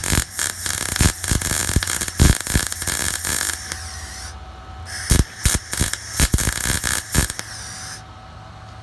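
Flux-core wire-feed welder arc crackling and sputtering as weld is laid on a sheared stud. It runs in two bursts, the first about four seconds long and the second about three seconds, with a short pause between them.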